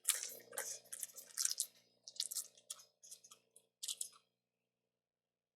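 Flux crackling and sizzling around a camera connector on an iPhone logic board as it is reflowed: dense, irregular crackles that stop suddenly about four seconds in.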